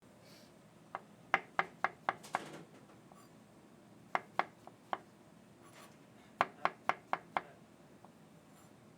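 Knife chopping on a cutting board: three quick runs of sharp knocks, about four strokes a second, with short pauses between runs.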